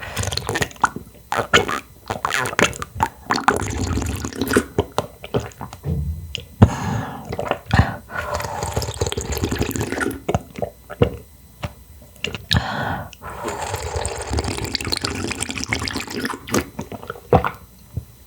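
Close-miked eating sounds: a person slurping clam broth and chewing, with wet mouth clicks and longer hissing sips.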